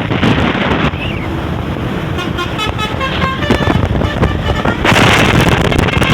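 A bus's Basuri V3 'telolet' musical air horn plays a quick tune of short stepped notes about two seconds in, over the bus's running engine. A loud rush of noise follows from about five seconds in.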